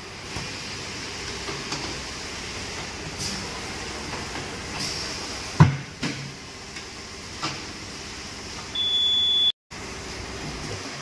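Tyre-shop work as wheels are swapped: scattered metallic knocks and clanks over a steady background hum, one knock about halfway through much louder than the rest. Near the end a short high steady tone sounds, then everything cuts out abruptly.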